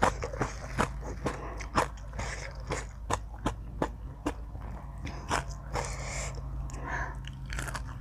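A person eating Thai spicy seafood salad with noodles, close to the microphone. The sound is chewing and biting, with irregular sharp crunchy clicks.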